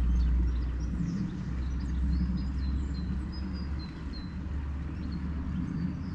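Steady low outdoor rumble with small birds chirping in short, repeated calls over it; the rumble eases briefly about four seconds in.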